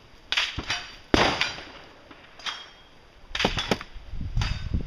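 A string of sharp bangs and clacks, the loudest about a second in, ringing on briefly after it, with a quick pair between three and four seconds in.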